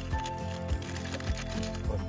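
Background music with a steady beat and sustained tones.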